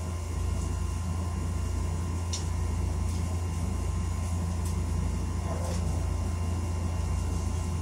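Steady low hum of background noise, with a few faint taps or clicks scattered through it.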